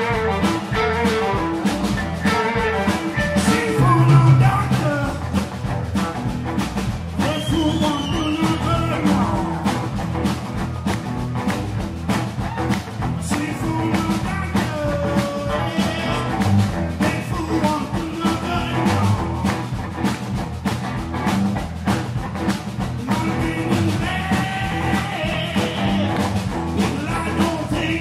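Live blues-rock band playing: electric guitars over bass and a steady drum beat, with a male voice singing at the mic in parts.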